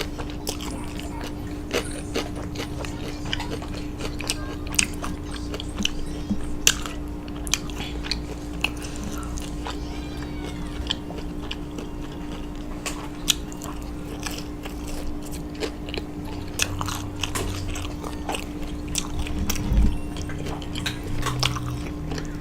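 Close-up chewing and crunching of fried takeout food: irregular wet mouth clicks and crunches. A steady low hum runs underneath.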